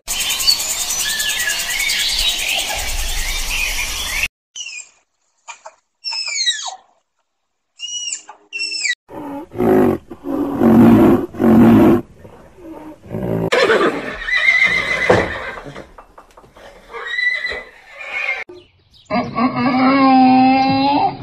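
A run of different animal calls cut one after another: a noisy stretch with chirps, then several short high calls falling in pitch, then louder deeper calls, and near the end a long wavering call.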